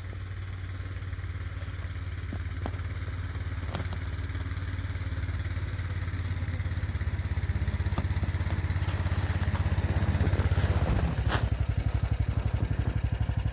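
Snowmobile engine running steadily and growing louder, then dropping about eleven seconds in to an idle with a quick, even pulsing beat.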